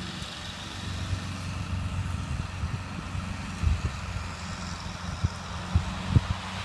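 Flatbed pickup truck's engine running as it drives slowly across soft beach sand, a steady low hum, heard from a distance. A few dull thumps come in the second half.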